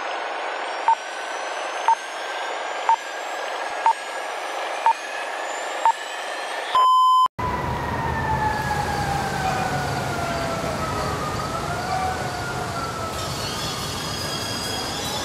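Six short electronic beeps, one a second, over a steady hiss with faint rising whistles, ending in a longer beep about seven seconds in. After it comes a rumbling noise with a slowly falling, wavering tone.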